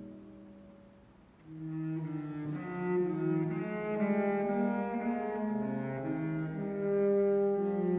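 Saxophone quintet playing a slow hymn in chords. A held chord dies away, and about a second and a half in the ensemble comes back in with a new phrase of sustained notes in several voices.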